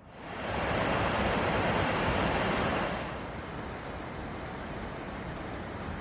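Creek water rushing, starting suddenly, louder for the first three seconds, then a steady, quieter rush.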